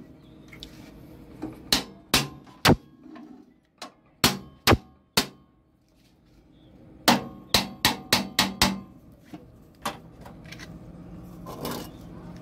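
Sharp metal knocks on an agarbatti machine's feeder and stand, struck in short groups with a quick run of about seven a little past halfway. They come as the feeder is knocked forward and back into line with the machine.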